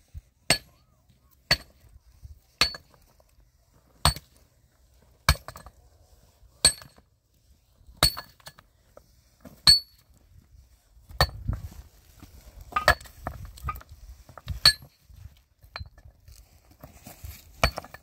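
Hammer blows on metal, about a dozen ringing strikes spaced roughly a second to a second and a half apart, with a longer gap near the end.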